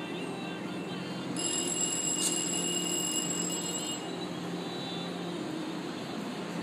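AMT commuter train coaches rolling past, a steady rumble with a low hum. A high steady ringing tone sounds over it for about two and a half seconds from a second and a half in.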